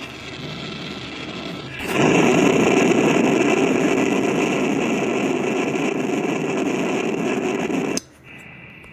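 Xiegu X6100 transceiver putting out loud receiver noise, a steady buzzy hiss that is interference from its power adapter. The noise jumps up sharply about two seconds in and cuts off abruptly about a second before the end, leaving a quieter hiss.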